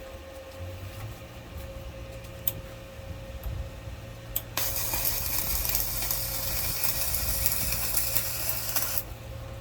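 Welding arc from a Hyundai HG200 welder burning on a pipe: after a couple of sharp clicks, a steady crackling hiss starts about four and a half seconds in and cuts off abruptly near the end. A low steady hum runs underneath.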